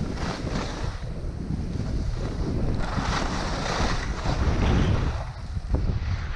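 Wind buffeting a GoPro Hero 5 Black's microphone in a snowstorm: a heavy, uneven low rumble with a hissing swell about three seconds in.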